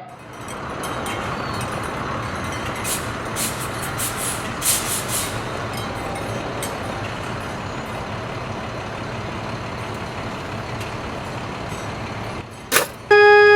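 Large truck engine running steadily, with several short hisses about three to five seconds in. Near the end a click, then piano notes begin.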